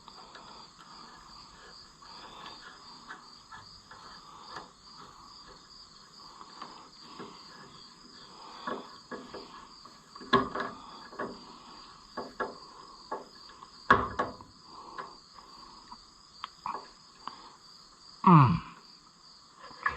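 Crickets chirping steadily, with scattered clicks and knocks of hands working a rubber radiator hose and clamp onto a tractor's radiator. There is a sharper knock about two thirds of the way through and a brief falling squeak near the end.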